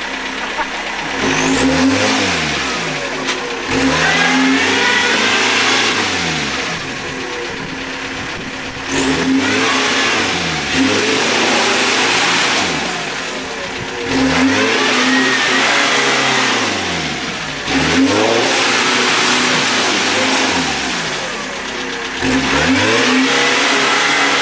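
Off-road vehicle engine revved hard in repeated bursts, about six or seven times, the pitch climbing and falling with each burst, with lower running between them.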